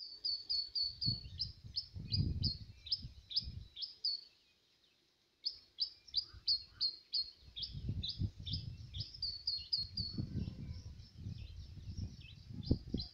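Birds chirping, a short high note repeated rapidly, about four times a second, over low rumbling noise. The recording drops out for about a second some four seconds in.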